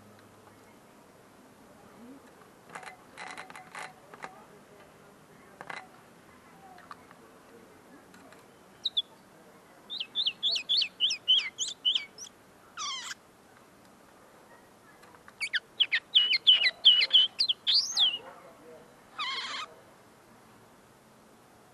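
Common linnet singing two runs of rapid high twittering, each ending in a longer sweeping note; a young bird whose song is still being perfected. A few soft clicks come before the song.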